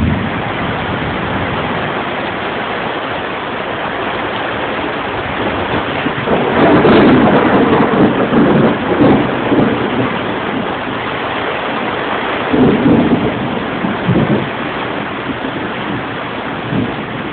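Steady rain falling. Thunder rumbles for several seconds from about six seconds in, and rolls again more briefly a little later.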